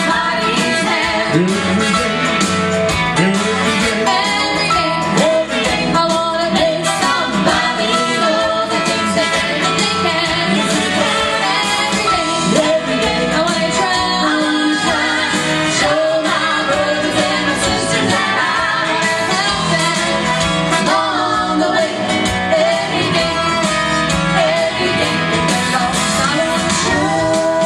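Gospel group singing a song with instrumental accompaniment.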